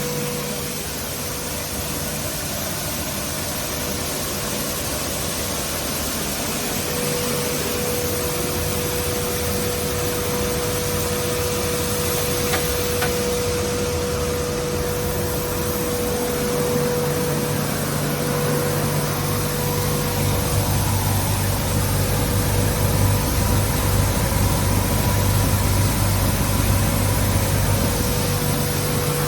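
Motor-driven grain stone mill running steadily: a constant machine drone with a held whining tone and a low hum, growing louder and rougher about twenty seconds in.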